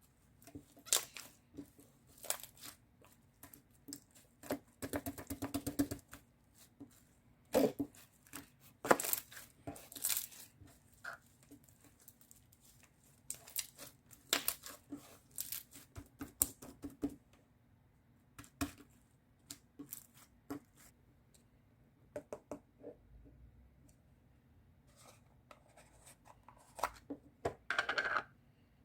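Irregular handling sounds: scattered taps and clicks with short bursts of tearing or crinkling, denser about five, nine and twenty-eight seconds in.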